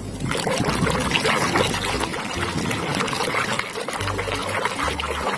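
Water pouring and splashing as muddy toys are rinsed clean.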